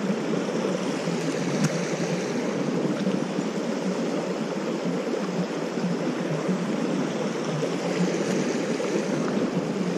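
Small trout creek running steadily over a shallow riffle: an even rush of flowing water.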